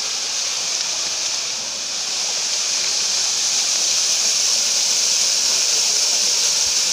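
Steady hiss of flowing river water, strongest in the high range, growing a little louder about two seconds in.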